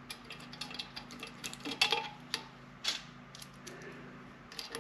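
Light metallic clicks and ticks of small steel bolts being handled and started by hand into a transmission's aluminium case, with a few sharper clinks about two and three seconds in.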